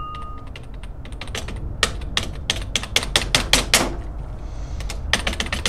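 Typing on a computer keyboard: sharp, uneven key clicks, a few faint ones first, then a quick run of about a dozen louder strokes, and a few more near the end. A steady electronic beep tone cuts off right at the start.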